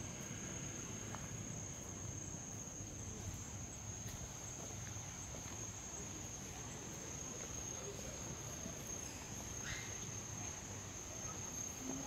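Insects singing in one steady, high-pitched drone.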